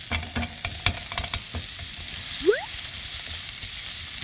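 Sliced onion stir-frying with minced garlic and green onion in a nonstick frying pan: a steady sizzle, with a silicone spatula scraping and tapping against the pan, and one short rising squeak about two and a half seconds in.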